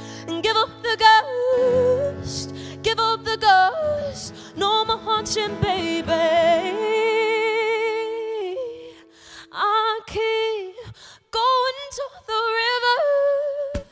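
Female voice singing wordless melismatic runs and ad-libs with strong vibrato, including one long held note in the middle, over acoustic guitar accompaniment.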